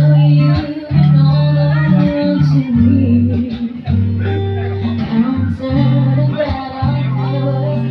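A woman singing live into a handheld microphone over a sequenced backing track with guitar, amplified through a PA system. Steady low bass notes change about once a second beneath the voice.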